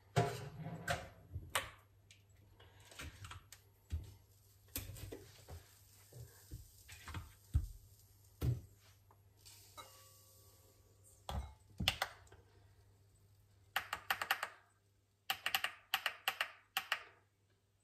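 Scattered light knocks and clicks of kitchen items being handled on a countertop, then a quick run of clicks near the end as the buttons of a digital kitchen scale are pressed.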